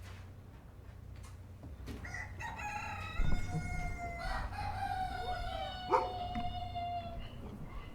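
Rooster crowing: a long cock-a-doodle-doo starts about two seconds in and trails off near seven seconds, with a second, lower crow overlapping it. A low thump comes about three seconds in.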